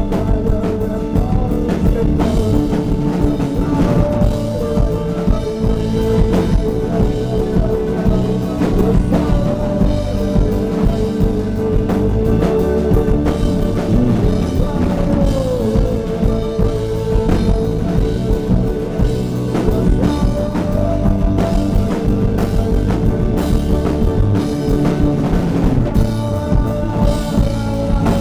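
Live band playing a rock song: strummed acoustic guitar, drum kit and bass, with a man singing long held notes into the microphone.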